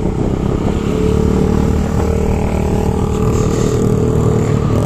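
Small motorcycle engine running at a steady, even note while riding, heard from on the bike.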